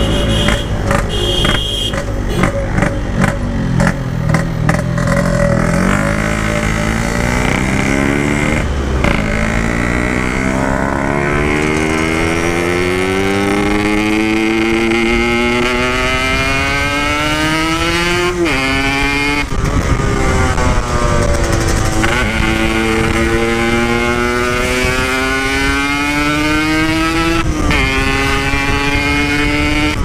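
Yamaha RX-King's single-cylinder two-stroke engine through its Packing Power standard-style tin exhaust, first running choppy and uneven at low revs, then pulling up through the gears: a long climbing engine note that drops at each of several gear changes and climbs again. The owner says the carburettor setting is badly off.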